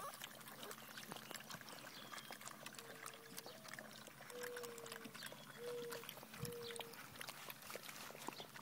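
A litter of five-week-old giant schnauzer puppies lapping and slurping from a shared feeding pan: a dense run of small wet clicks, with four short whines in the middle.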